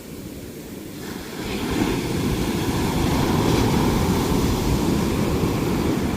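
Ocean surf: the rush of waves grows louder as a wave breaks about a second and a half in, and the wash of surf then runs on at that level.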